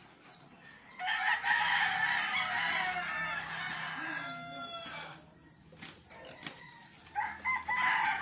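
Rooster crowing: one long crow starting about a second in, and another beginning near the end.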